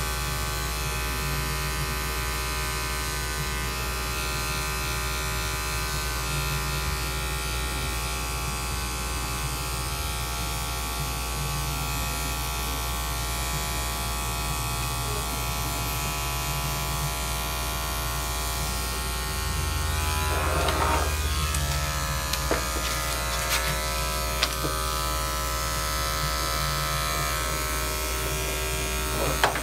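Corded electric dog-grooming clipper running steadily as it trims the hair on a small dog's paws and legs. The buzz grows louder for a couple of seconds about two-thirds of the way through, and a few light knocks follow.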